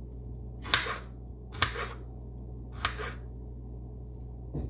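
Kitchen knife cutting bell peppers on a cutting board: four slow, sharp cuts about a second or more apart.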